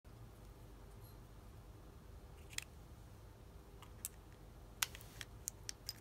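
Scattered small clicks and crinkles of fingers handling a homemade launcher of taped steel brackets while setting a nail in it as the stake. The clicks start about two and a half seconds in and come closer together near the end, over a faint steady hum.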